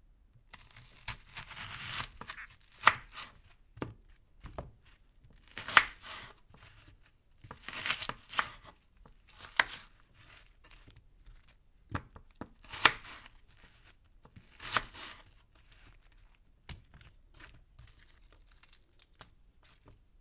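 A knife cutting a potato in irregular strokes, each a short slicing noise ending in a sharp knock. The strokes come every second or two, with fainter taps near the end.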